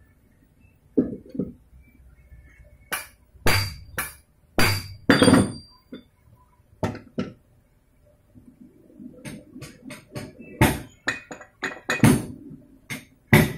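Sharp metal-on-metal knocks and clinks, some with a brief ring: a cluster of about five a few seconds in and more near the end. They come from a rebuilt Kawasaki 175 single-cylinder crankshaft being handled and struck while it is trued on a stand.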